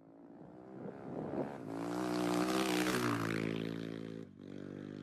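Motorcycle engine running, fading in and growing louder, with a couple of small shifts in pitch; a short break about four seconds in, after which it goes on more quietly.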